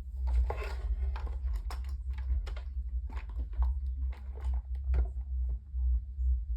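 Irregular clicks and light knocks of plastic fan parts being handled and screwed back together, several a second, over a low rumble.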